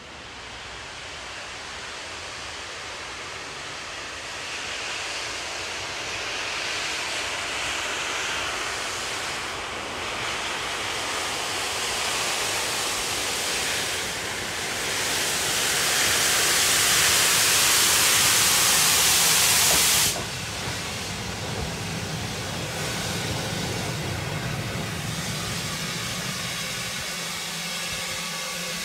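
Steam tank locomotive and its coaches running into a station platform, the sound building as it nears. About halfway through, a loud hiss of escaping steam starts, then cuts off suddenly, leaving the rumble of the train rolling by.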